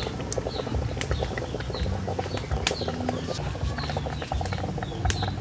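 Snails cooking in a pot over a wood fire, a dense crackling and bubbling, while a small bird chirps again and again in short falling notes, about two a second.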